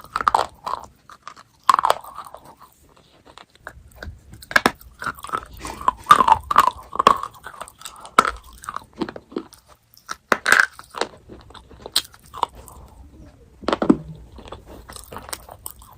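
Chocolate being bitten and chewed close to the microphone: irregular crisp crunches and chewing, with short pauses between bites.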